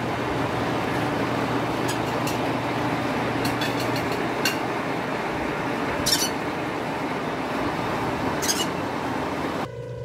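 Steady low mechanical hum with a rushing noise, broken by a few short faint clicks, the clearest about six seconds in. It drops away abruptly just before the end.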